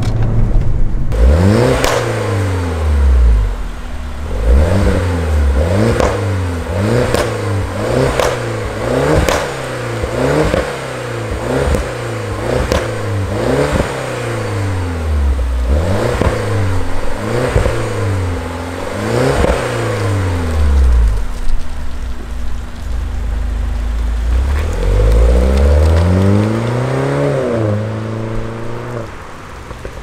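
Mini Cooper S engine revved again and again, the revs rising and falling about once a second, with sharp exhaust pops and crackles as the revs drop. These are overrun misfires deliberately put back in by a software remap. Near the end, after a short lull, one longer rev rises and falls.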